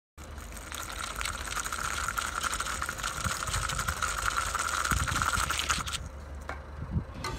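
Small electric motor of a homemade wooden-stick RC buggy, giving a steady high whine over a gritty hiss from its wheels on wet, gritty asphalt. The sound cuts off suddenly about six seconds in, and a few light clicks follow.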